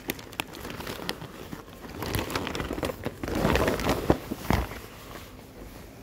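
Rustling and crinkling of a disposable coverall's papery fabric rubbing against the phone's microphone, with scattered sharp clicks of handling noise; the rustle gets louder about three seconds in and dies down near the end.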